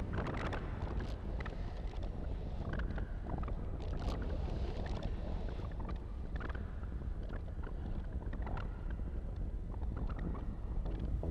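Behringer DeepMind 6 analogue synth playing a rushing, surf-like noise texture with no clear notes, flecked with scattered sharp clicks.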